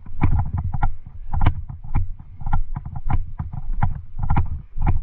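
Footsteps of a person walking close to the microphone, a step a little under twice a second, each a dull thud with rustle and clatter on top.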